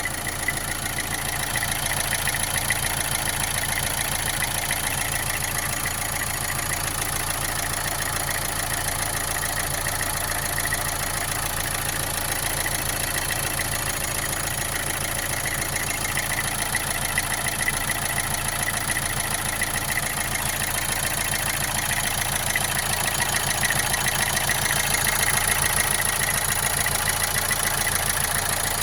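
Opel Astra J 1.7 CDTI four-cylinder turbodiesel idling steadily with a knocking sound, which the owner says appeared after an oil change, along with vibration, though the engine runs well and doesn't smoke.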